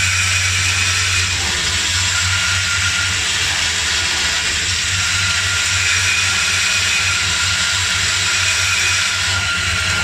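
Automatic odd-form insertion machine running as it places USB connectors into circuit boards: a steady mechanical din of hiss over a low hum, with a faint steady high tone.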